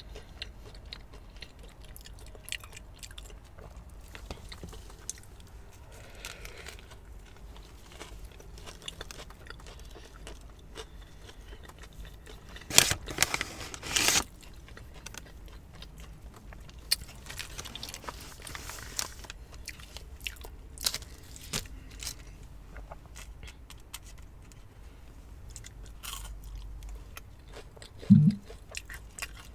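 Close-miked chewing and crunching of a fried onion ring, with many small crunches and mouth sounds and two louder bursts about halfway through. A short low sound comes near the end.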